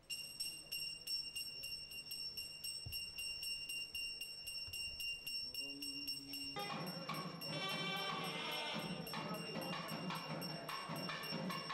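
Temple hand bell rung continuously, its clapper striking a few times a second over a steady ring. A little past halfway a short held tone sounds, then fuller music with percussion joins in.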